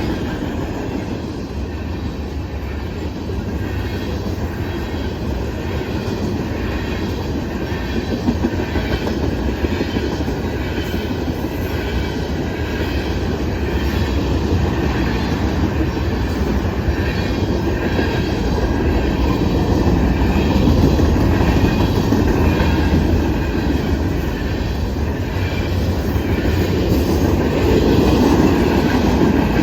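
Norfolk Southern manifest freight train's cars rolling past, a loud steady rumble of steel wheels on the rails that grows somewhat louder toward the end.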